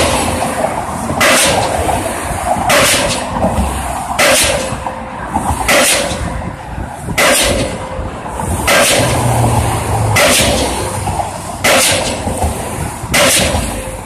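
Pile driver hammer striking a square concrete pile with a sharp bang about every one and a half seconds, in a steady rhythm. A steady machinery hum runs between the strikes.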